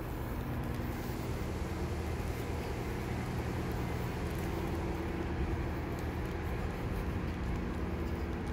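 Steady low drone of an idling vehicle engine, a hum of several low tones that holds even throughout.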